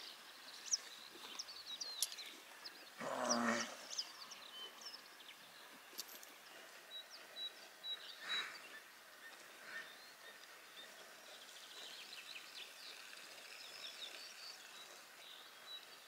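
Pasture ambience with small birds chirping repeatedly. A short, deeper animal call stands out about three seconds in.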